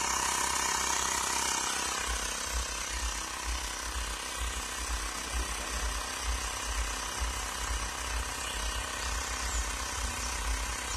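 Xiaomi Mi portable tyre inflator's compressor running steadily with a fast low pulsing, pumping air into a car's rear tyre that is being topped up from 26 psi. About two seconds in it becomes a little quieter and duller.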